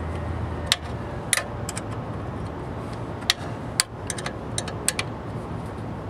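Wrenches clicking and clinking against the motor mount nuts and steel frame of a belt-driven exhaust fan as the mount is tightened to hold the belt tension. About a dozen sharp, irregular metal clicks sound over a steady low background hum.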